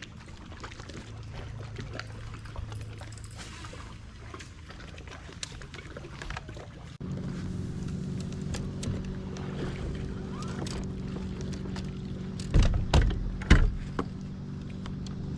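A boat's motor running steadily, a low drone that steps up suddenly about halfway through. A few loud knocks come near the end.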